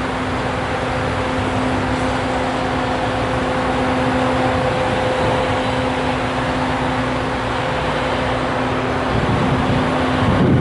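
Idling vehicle engine: a steady hum with two constant tones over a noisy bed. Near the end the lower tone drops away and wind buffets the microphone.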